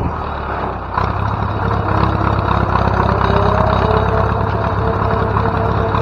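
Ursus C-355/C-360 tractor's four-cylinder diesel engine running as the tractor drives along, a tone in it climbing slowly in pitch as it gathers speed. The sound steps up in loudness about a second in.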